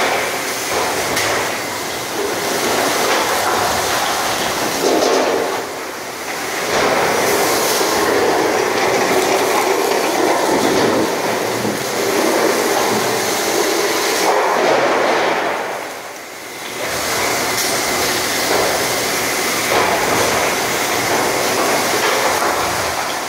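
Robotic MIG welding arc on steel rack parts: a steady, rough crackling hiss, dropping away briefly twice, about six and sixteen seconds in, between welds.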